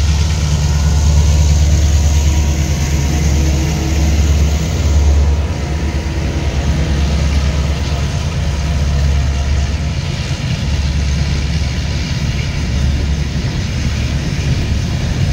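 Two diesel-electric locomotives working in tandem pass close by, their engines running with a deep, steady hum. From about five seconds in, this gives way to the rumble of empty coal wagons rolling over the rails.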